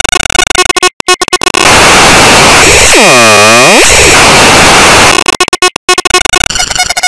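Harsh, heavily distorted and clipped noise from an effects-processed cartoon soundtrack. It is chopped by stuttering cut-outs near the start and again near the end. In the middle, a sweeping whoosh dips down in pitch and climbs back up.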